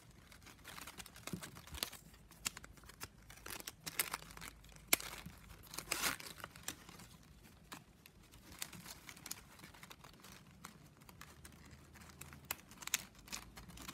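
9 mm plastic strapping band crinkling and clicking as its strips are bent and threaded through a woven piece by hand, in scattered irregular ticks with a few louder snaps.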